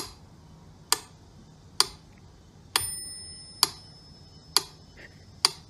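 Pyramid-shaped mechanical metronome ticking at a steady slow tempo, seven ticks about one every 0.9 seconds. A faint high ringing tone follows the tick about halfway through.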